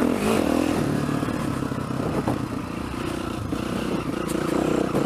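Yamaha dirt bike engine running under load while riding a trail. It eases off a little in the middle and picks up again near the end.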